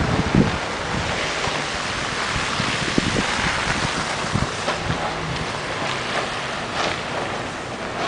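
Wind buffeting the microphone over a steady rush of street noise, with a few soft low thumps scattered through it.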